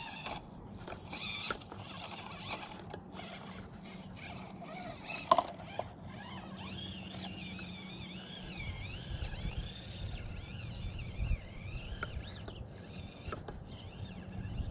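Small electric motor and gears of an Axial SCX24 micro crawler RC truck whining, rising and falling in pitch with the throttle, with scattered clicks and knocks of the tyres and chassis on rock. One sharp knock comes about five seconds in.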